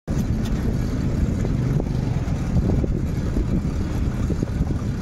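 Motor vehicles running at close range: a steady, dense low engine rumble that cuts in abruptly at the start.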